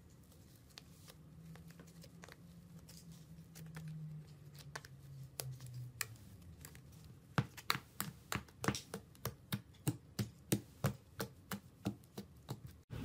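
Foam slime in a plastic tub being poked and pressed with fingers. It is faint at first, then from about seven seconds a run of sharp pops, about four a second, as the bubbly slime is squeezed.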